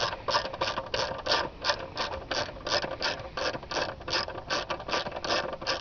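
A 1/4-inch ratchet with an 8 mm socket and extension clicking in quick, even back-and-forth strokes, about four a second, as it backs out a seat bolt on a motorcycle.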